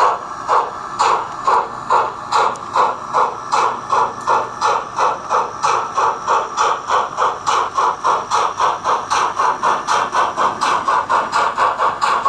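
A model locomotive's sound decoder plays the exhaust chuffs of the streamlined Henschel-Wegmann train's steam locomotive pulling away. The beats quicken from about two a second to about four a second as the train gathers speed, with a hiss above them.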